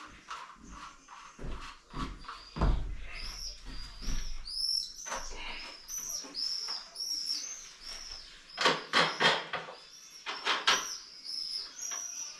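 A bird chirping over and over in short, high, arching notes, several a second, from about three seconds in. Scattered knocks and clatter come through too, busiest about two thirds of the way in.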